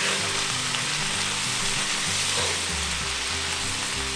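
Diced tomato, poblano pepper strips and onion sizzling steadily in a hot skillet while being stirred with a wooden spoon. Soft background music plays underneath.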